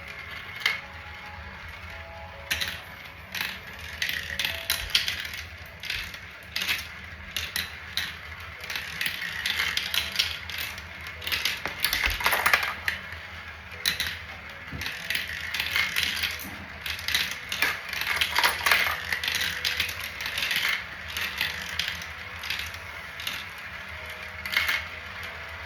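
Marbles rolling and clicking along a homemade marble run: a continuous rattle of small clicks and knocks that grows busier and louder in the middle.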